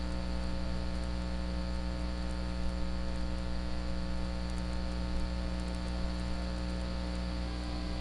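Steady electrical mains hum, a stack of even tones over a layer of hiss, picked up in the recording.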